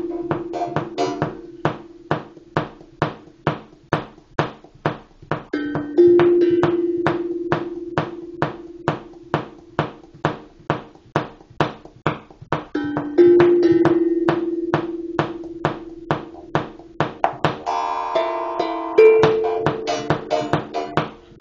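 Rhythmic music on struck metal percussion. A steady beat of about two and a half strikes a second runs under a long ringing low note that sounds about every seven seconds. A short run of higher ringing notes comes near the end.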